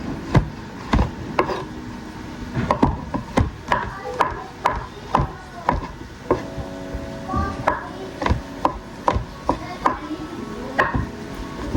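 Knife chopping on a wooden cutting board, a steady run of sharp knocks about two a second.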